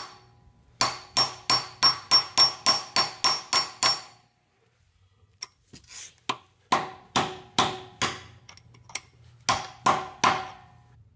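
Hammer striking a seal driver to drive a freezer-chilled clutch pilot bearing into the end of a Porsche 944 crankshaft. The blows come in quick runs of about three to four a second, each with a short metallic ring, with a pause of a second or so about four seconds in.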